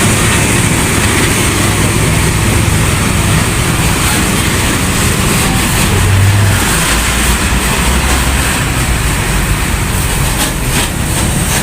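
Heavy road traffic passing close by: a steady low rumble of large diesel vehicle engines with tyre and road noise, and a few short clatters near the end.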